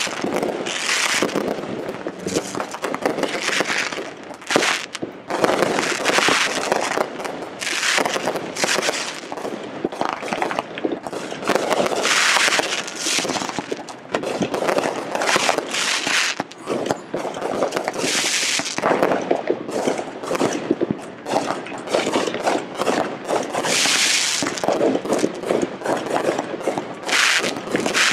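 Aerial fireworks going off in a rapid, continuous barrage of bangs, with louder stretches about every six seconds.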